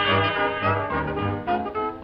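1920s-style jazz band music, instrumental with brass to the fore, over a bass beat of about two notes a second.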